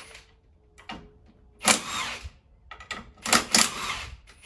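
A power tool undoing the front ball joint bolts on a VW Caddy's hub, run in two short bursts, the second a little longer, with a few light clicks of the tool and parts between them.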